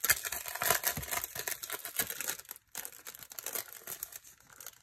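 Sheets of decorative planner stickers and their packaging crinkling and rustling as they are handled, with irregular crackles that pause briefly a little past halfway and thin out toward the end.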